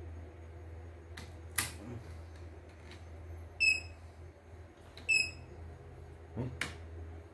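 CNY E900 computerised embroidery machine giving two short high beeps about a second and a half apart as its touchscreen is pressed, a sign that the screen is registering the touches. A few sharp clicks from handling the open machine over a steady low hum.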